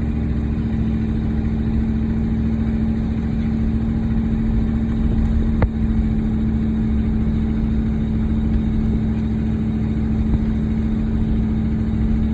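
A vehicle engine running at a steady speed, heard from inside the cab as a constant low hum, with one sharp click about halfway through.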